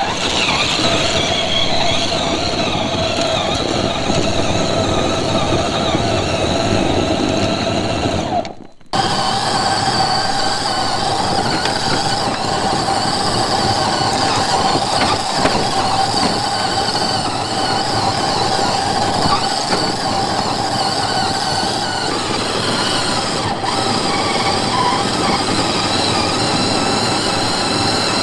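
A scale RC crawler's electric motor and geared drivetrain whine steadily under load as it climbs loose dirt and gravel. The sound cuts out briefly about eight and a half seconds in, then resumes.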